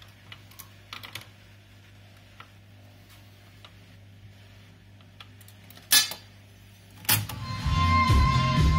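Grundig MS80 de luxe radiogram with its record finished: a steady low hum with a few faint clicks. About six and seven seconds in come two loud switch clicks, and music with singing comes up from its loudspeaker from the radio.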